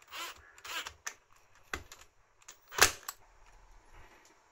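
Clicks and short rasps of hand-tool work on a small wooden base: a screwdriver turning a screw, then the handling of small parts, with one sharp knock a little under three seconds in.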